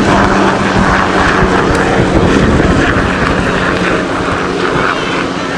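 Small helicopter in flight, its engine and rotor making a steady drone with a low hum.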